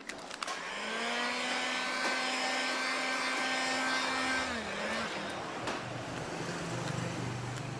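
Electric heat gun running, a steady motor whine with a rush of blown air, heating vinyl headlamp film to shrink out wrinkles. The whine drops in pitch about four and a half seconds in, and a lower hum carries on.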